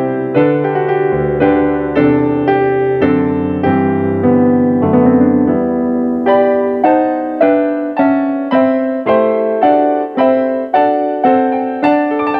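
Piano playing a continuous run of struck chords, with the attacks coming sharper and more regular in the second half.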